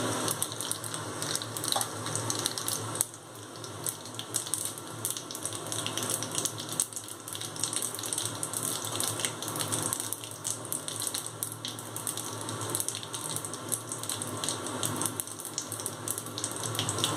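Whole spices (cumin and fennel seeds, bay leaves, dried red chillies) sizzling and crackling in hot vegetable oil in a kadai: the tempering (phoron) frying until it is ready.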